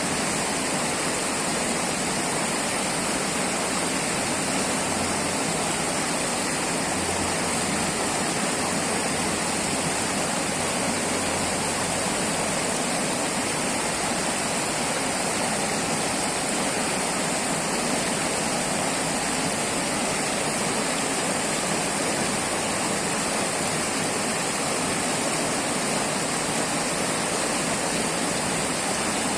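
River water flowing with a steady, even rushing.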